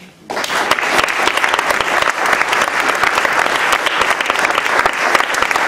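Audience applauding, breaking out suddenly a moment in and going on steadily as a dense patter of many hands clapping.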